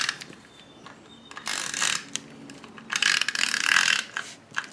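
Adhesive tape runner drawn across the back of a paper layer in two strokes, a fainter one about a second and a half in and a louder one about three seconds in, each a short clicking rasp.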